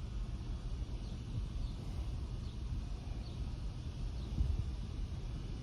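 Outdoor ambience: a steady low rumble with faint, short high chirps of small birds every half second or so.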